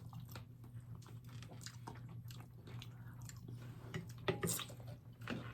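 Close-miked chewing and biting of a tostada, with many small wet mouth clicks and a few sharper crunches, louder from about four seconds in. A steady low hum runs underneath.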